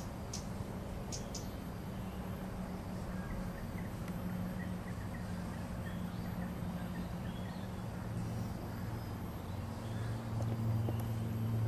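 A steady low motor hum that grows louder near the end, with a few short, high bird chirps near the start.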